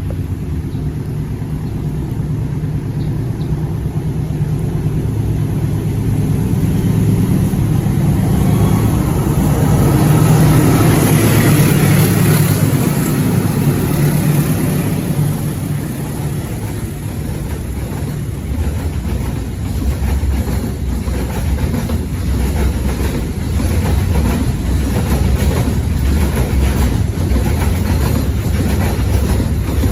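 Diesel-electric locomotive passing with a heavy engine sound that swells to its loudest about ten to twelve seconds in, followed by the train's carriages rolling by with a steady run of wheel clicks over the rail joints.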